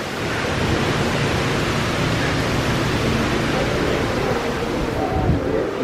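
Indoor rock waterfall splashing over rocks into its pool, a steady rushing of water. A faint voice or two comes in near the end.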